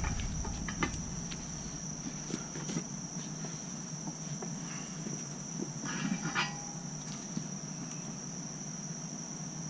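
Steady high-pitched cricket trill, with scattered light clicks and clinks of a dirt bike tire being levered off its rim, a short cluster of them about six seconds in.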